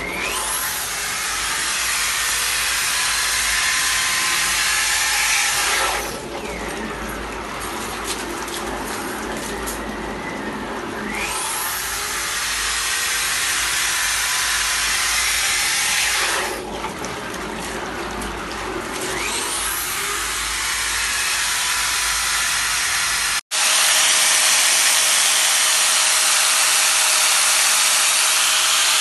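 Red DYK electric drill running while dunked in a bucket of water, its motor noise mixed with churning and splashing water. It is switched off and back on twice, winding down and then rising in pitch as it spins back up. Near the end a cut brings in a different steady machine noise with a faint steady tone.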